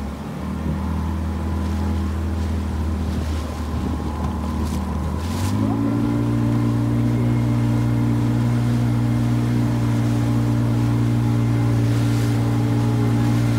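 Outboard motor of a small inflatable boat running under way. About five seconds in it revs up and then holds steady at the higher speed, over water rushing past the hull.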